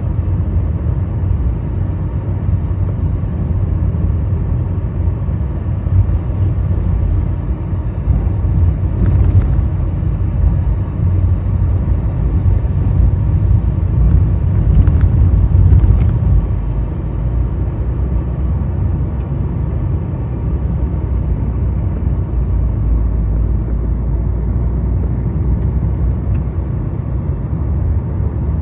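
A vehicle driving on a hill road: a steady low rumble of engine and tyres that swells a little around the middle, with a few faint clicks.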